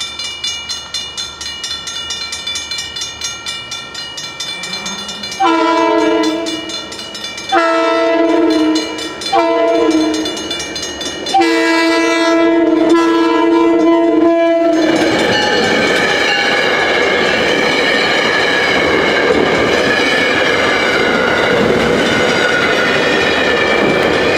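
A grade-crossing bell ringing rapidly, then a diesel passenger locomotive's multi-note horn sounding four loud blasts for the crossing. The train then passes close by with a loud rumble and the clatter of wheels over rail.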